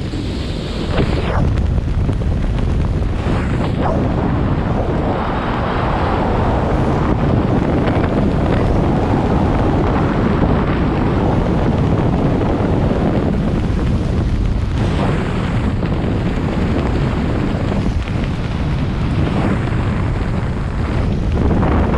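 Air rushing over the camera's microphone during a skydive: a loud, unbroken wind roar, heaviest in the low end and swelling slightly around the middle.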